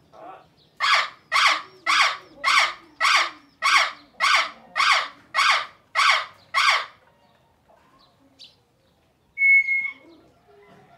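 Parrot squawking in a rapid run of about eleven harsh calls, roughly two a second, then after a pause one short steady whistle near the end.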